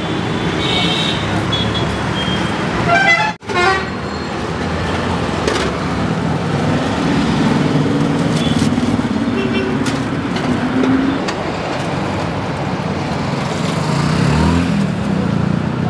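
Busy road traffic running steadily, with vehicle horns tooting a few times.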